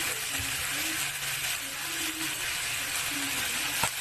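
Chicken feet frying in a pan: a steady sizzle, with one sharp click near the end.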